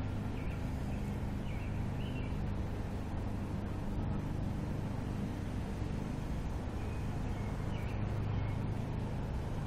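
Steady low background hum, with a few faint, brief high chirps now and then.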